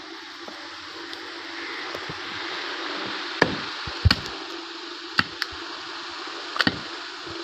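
Meat cleaver chopping meat on a wooden chopping block: about six sharp chops, irregularly spaced and some in quick pairs, starting about three seconds in, over a steady hiss.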